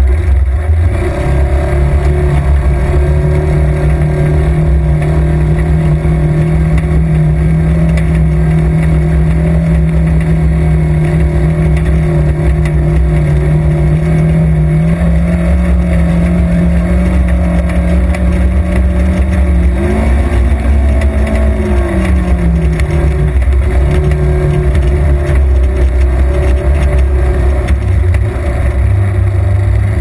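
Side-by-side UTV engine running at a steady pitch under a loud low rumble while the vehicle drives through a creek. The pitch steps up slightly about halfway, then rises and falls briefly about two-thirds of the way through.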